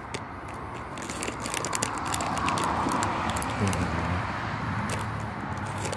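A vehicle passing on the street: a rush of noise that builds to a peak about two and a half seconds in and then slowly fades, over a low hum, with scattered light clicks.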